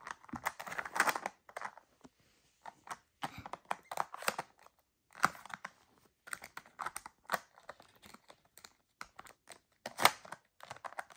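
Plastic tiles of a sliding treat-puzzle toy clicking and clattering as a white-faced capuchin paws and pushes at them, in irregular clusters of taps with short pauses between.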